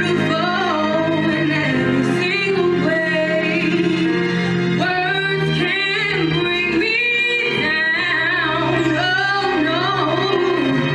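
A woman singing solo into a handheld microphone, her voice gliding and bending through a melody, over instrumental accompaniment that holds long, steady low notes.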